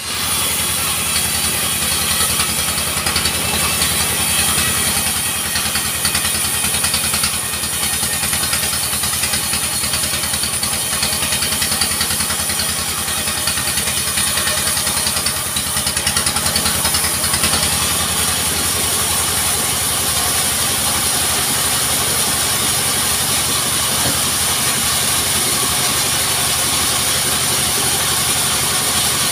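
Engine of a small portable log sawmill running steadily at a constant speed, with a steady high hiss above it.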